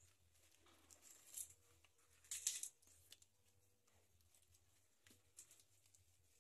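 Corn tortillas being torn by hand at the table: a few short, soft rasps, the clearest about one and two and a half seconds in, over near silence.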